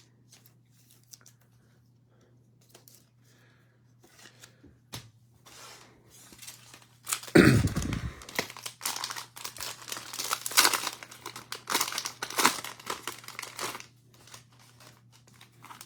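Plastic cellophane wrapper of a trading-card cello pack being torn open and crinkled in the hands. It starts with a few faint handling clicks, then gets loud from about seven seconds in, with sharp rips and crackling until near the end.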